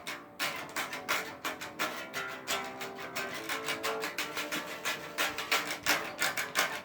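A guitar being played in the room, strummed in a quick, even rhythm with the notes ringing on.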